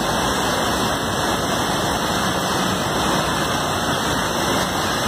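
Steady rush of a river in flood, muddy floodwater surging past in an even, unbroken noise.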